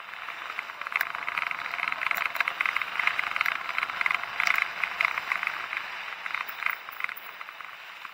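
Rapid, irregular clicking and rattling from a moving bicycle rolling over a rough, muddy road, with no engine heard.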